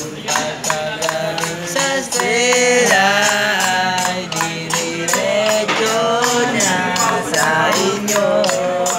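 Drum and cymbal sounds from a smartphone drum app, tapped out as a steady quick beat, with a voice singing a melody over them from about two seconds in.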